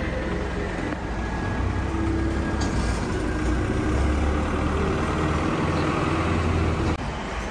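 A heavy vehicle's engine idling, a steady low rumble, breaking off abruptly about seven seconds in.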